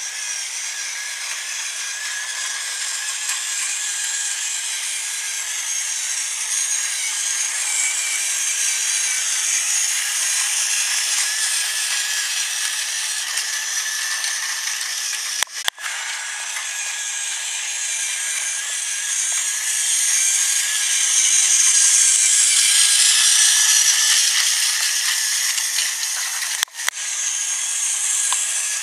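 Battery-powered Tomy toy train running on plastic track: the power car's small motor and gears whirring steadily, with the wheels rattling along the track. It grows louder for a few seconds about two-thirds of the way through, as if passing close, and drops out briefly twice.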